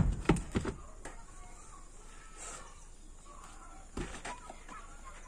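A heavy ring-shaped stone lifting weight lands on dirt ground with a loud thud, then bounces and thuds twice more within about half a second. A much softer knock follows about four seconds in.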